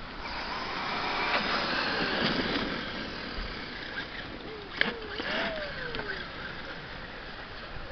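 Quad brushless electric motors of a 1/5-scale Traxxas E-Maxx RC truck whining as it drives up on wet pavement, getting louder as it nears. About five seconds in the whine glides up and down as it speeds up and slows, with a sharp click.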